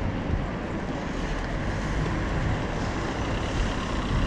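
Steady rumble of wind and road noise on a camera moving along a street.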